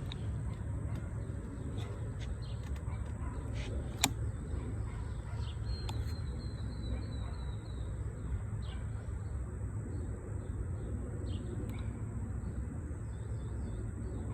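Birds chirping over a steady low rumble, with a thin high whine held throughout and one sharp click about four seconds in.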